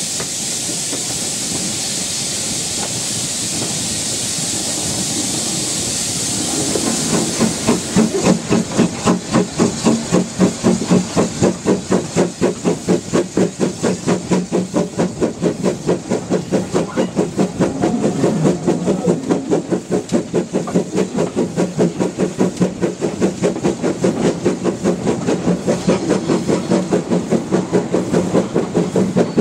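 W.G. Bagnall saddle-tank steam locomotive heard from its cab side. At first there is a steady hiss of escaping steam; about seven seconds in, even exhaust beats start at roughly three a second as the engine works under steam, and they continue almost to the end.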